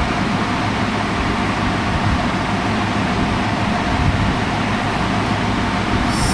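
Steady, unchanging droning noise with a low hum underneath. A short high hiss comes just before the end.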